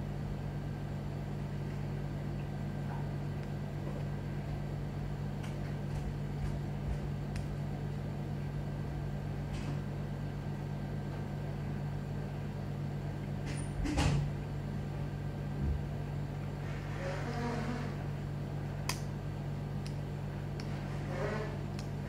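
A steady low hum, with faint clicks of a small plastic toy launcher being fiddled with in the hands and one sharper click about two-thirds of the way in.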